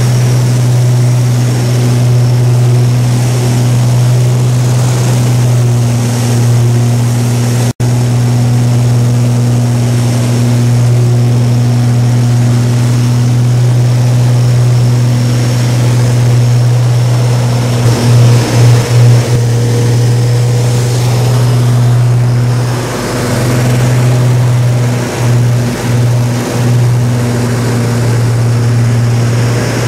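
Twin Rolls-Royce Merlin V12 engines of a de Havilland Mosquito, heard from inside the cockpit in cruise. The drone is loud, steady and even-pitched, and it wavers briefly a few times in the second half.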